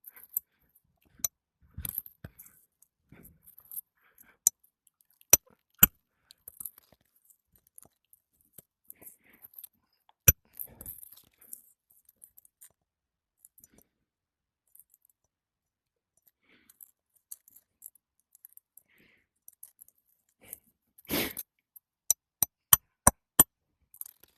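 Roof snake worked under brittle 3-tab asphalt shingles to pull nails: scattered sharp knocks and clicks of the metal tool, a short gritty scrape a few seconds before the end, then about five quick taps.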